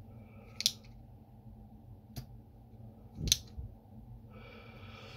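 Spring-loaded desoldering pump (solder sucker) clicking: two sharp snaps about two and a half seconds apart, with a fainter click between them.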